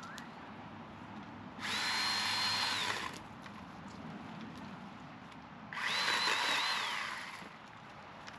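Chainsaw run in two short bursts about four seconds apart, each a steady high whine that falls away as it stops.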